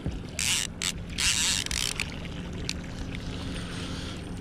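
Levelwind fishing reel being cranked to bring in a hooked fish, its gears running in a few short bursts in the first two seconds. Under it a steady low hum from a Mercury outboard motor idling in neutral.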